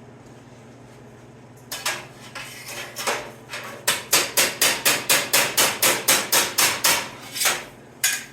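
Hammer blows on a sheet-steel patch panel being shaped: a few scattered strikes, then a quick even run of about four blows a second, then two last blows. The first second and a half holds only a low steady hum.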